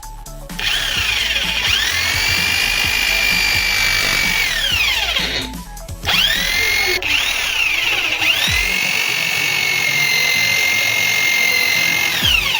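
12-volt 775 DC motor spinning up with a high whine, running steadily, then winding down to a stop about halfway through. It is switched on again, spins back up and runs steadily, with a brief dip and restart near the end.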